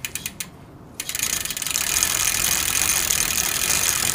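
Logo-intro sound effect: a few sharp clicks, then from about a second in a fast, steady ratcheting buzz.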